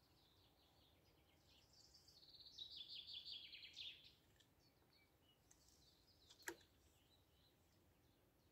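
Quiet outdoor background with a small songbird singing a quick run of high notes that swells and then stops about four seconds in. A single sharp click about six and a half seconds in.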